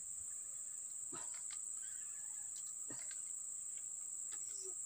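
Steady high-pitched drone of insects, with two faint short calls about one and three seconds in.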